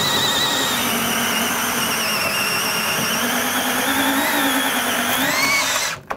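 DeWalt cordless drill boring a hole up through a wooden wall plate. The motor runs with a steady whine under load, wavering in pitch as the bit cuts. It stops suddenly near the end.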